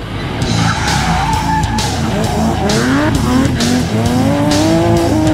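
Race car engine sound effect revving and accelerating, its pitch sweeping up again and again, over rock music with a steady drum beat. Both start suddenly.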